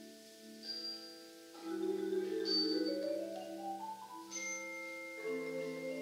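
A percussion ensemble of marimbas and other mallet instruments playing soft, ringing sustained chords. About a second and a half in, and again about five seconds in, a rising run of notes climbs up over the chords. Short high pings sound about every two seconds.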